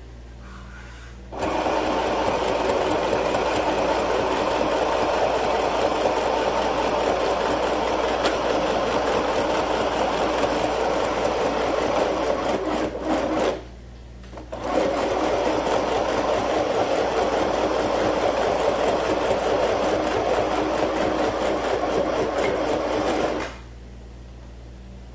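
Sewing machine stitching cloth in two long runs of about twelve and nine seconds, with a stop of about a second between them.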